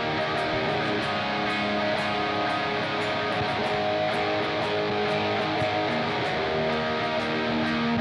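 Electric guitar played continuously through a Nux C-5RC 5.8 GHz wireless system into a Positive Grid Spark Mini amp and recorded direct, sustained notes and chords with steady picking. The signal runs unbroken with no dropouts: the wireless link is still holding at this distance.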